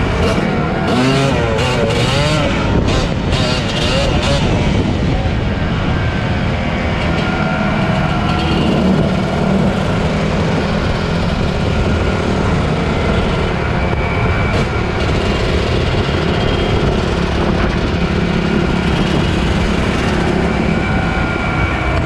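Motorcycle engine running under way, its pitch rising and falling over the first few seconds, over a steady heavy low rumble. Several short knocks come in the first five seconds.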